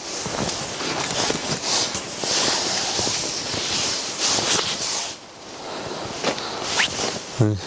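Strong wind rushing and gusting, a loud hiss that swells and eases, dipping briefly about five seconds in. A short low voice-like sound comes near the end.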